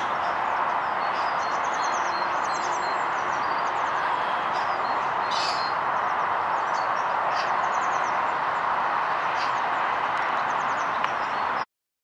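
Small birds chirping with short, high calls at garden bird feeders, over a steady background hiss; the sound cuts off abruptly near the end.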